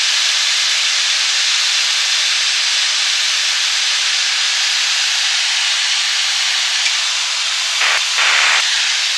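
Steady in-flight cockpit noise of a Jabiru-engined Europa XS light aircraft at reduced power, heard as an even hiss. A brief double sound cuts in near the end.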